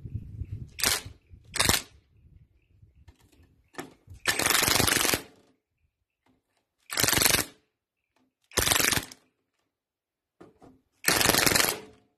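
Cordless power driver run in short bursts, driving a fastener into the end of a starter motor: two quick blips about a second in, then four longer runs of about half a second to a second each.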